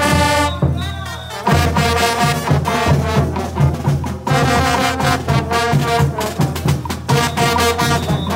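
Bolivian street brass band playing a caporales tune: massed brass horns over bass drums, snare drums and clash cymbals. The drums drop out for about a second near the start, leaving the brass alone, then come back in.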